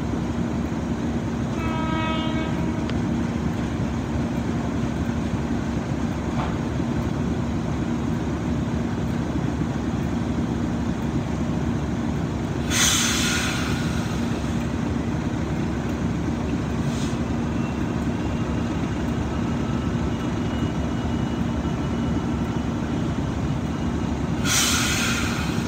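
Class 37 diesel locomotive's English Electric engine idling steadily, with a brief horn-like tone about two seconds in. Two loud bursts of hissing air, each about a second long, come near the middle and near the end, typical of locomotive air brakes.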